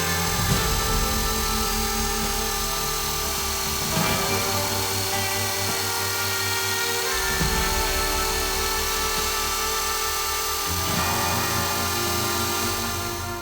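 Small electric motor whirring steadily under background music, then cutting off abruptly at the end.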